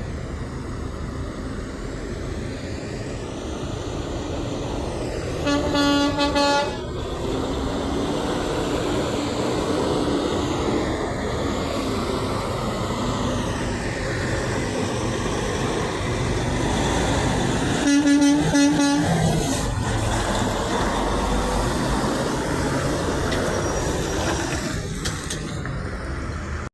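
Two blasts of a semi truck horn, each about a second long and about twelve seconds apart, over the steady noise of truck engines and traffic.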